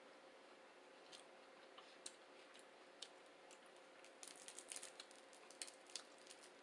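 Near silence with faint, scattered eating clicks: single ticks about a second apart at first, then a quick cluster of small clicks about four to five seconds in.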